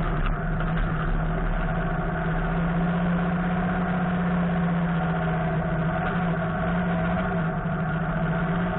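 Home-built off-road buggy's engine running at a steady, even note while the buggy drives along a dirt track.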